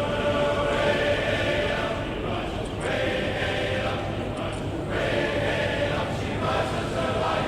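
Several voices singing together, in held phrases like a choir.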